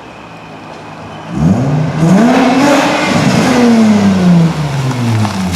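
Nissan Maxima's V6 through a newly fitted catback exhaust, revving up hard about a second and a half in, its pitch climbing to a peak and then slowly falling away. The new exhaust sounds good, the way it is supposed to sound rather than like a Nissan Sentra.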